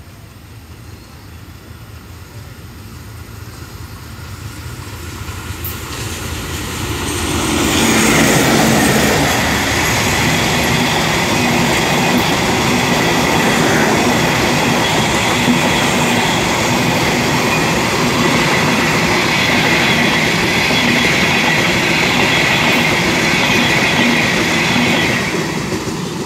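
Diesel-hauled passenger train approaching and then passing close by at low speed. The rumble builds over the first several seconds, then the long rake of coaches keeps up a steady wheel-on-rail clatter with a high-pitched wheel squeal, easing off near the end as the last coaches go by.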